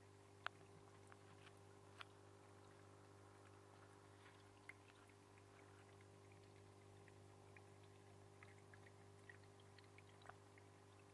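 Faint dripping and trickling of water over the rock wall of a frog terrarium: scattered small drips, the sharpest about half a second in and at two seconds, over a steady low hum.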